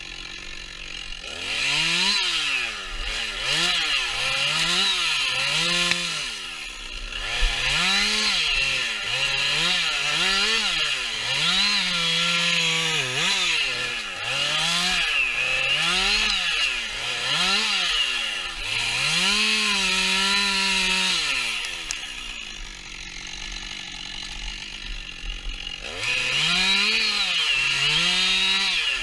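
Holzknecht HS 410 chainsaw delimbing a felled spruce: the engine revs up and drops back about once a second as each branch is cut off. Between runs it falls back to idle, briefly at first and for several seconds about three-quarters of the way through.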